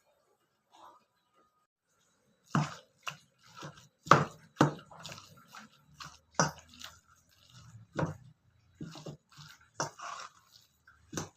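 Irregular knocks and thuds of kitchen food preparation, roughly one or two a second, starting a couple of seconds in.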